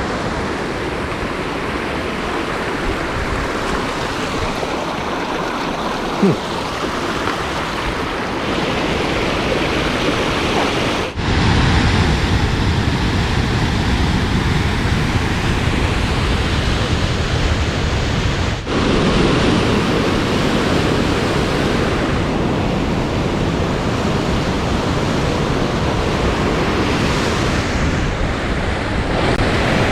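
Steady loud rush of fast-flowing water, an even roar with no rhythm. It changes abruptly twice, growing deeper and louder about eleven seconds in.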